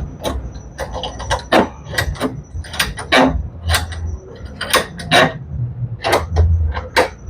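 Irregular metallic clicks and knocks of a nut and bolt being handled and fitted by hand at a workbench vise.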